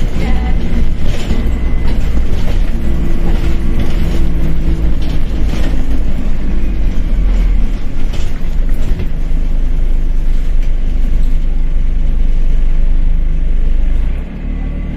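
Dennis Dart single-deck bus under way, its diesel engine running steadily, with frequent clicks and knocks over the first part. The level drops briefly near the end.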